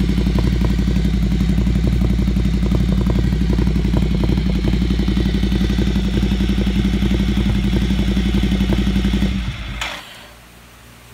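Ducati Monster 797's air-cooled L-twin idling steadily through an HP Corse GP07 slip-on exhaust with twisted link pipe, a deep, rapid pulsing note. The sound dies away about nine and a half seconds in.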